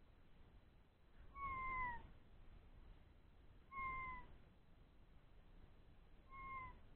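Three-week-old Old English Sheepdog puppies whimpering: three short whines, each sliding slightly down in pitch, about two and a half seconds apart.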